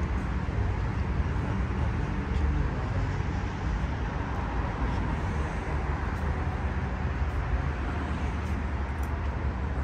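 Steady traffic noise from a busy multi-lane highway, cars passing in a continuous low rumble.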